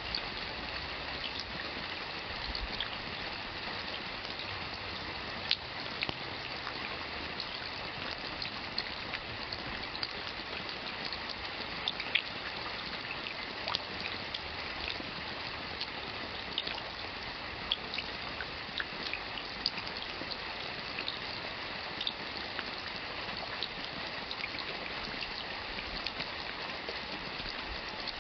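Steady rain with individual drops ticking and splatting sharply here and there.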